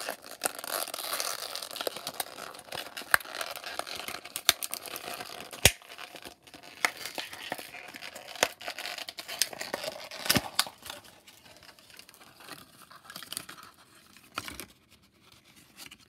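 A small Hatchimals toy egg being hatched open by hand: crinkling and tearing with many sharp clicks and snaps. It thins out over the last few seconds.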